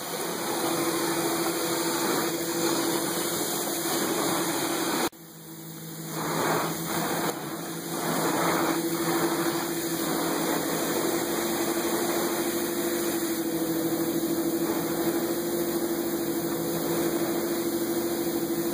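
Carpet-cleaning wand on a truck-mount extractor, pulling a steady rushing suction with a hum. It cuts out sharply about five seconds in, then builds back up in uneven surges before running steadily again.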